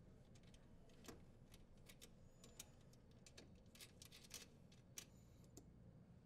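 Near silence broken by a few faint, scattered clicks and taps as a metal strain relief nut is threaded and tightened by hand.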